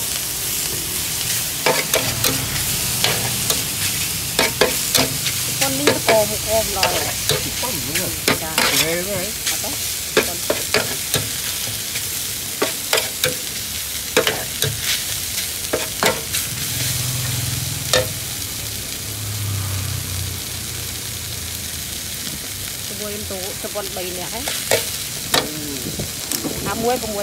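Yellow noodles and greens sizzling on a large flat metal pan while a metal spatula stirs and tosses them. The spatula scrapes and clacks against the pan irregularly over a steady frying hiss.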